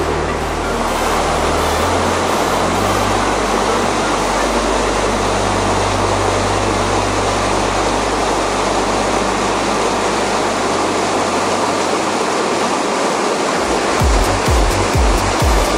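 Steady roar of rushing whitewater through river rapids, mixed with background music: held bass notes, with a pulsing beat coming in near the end.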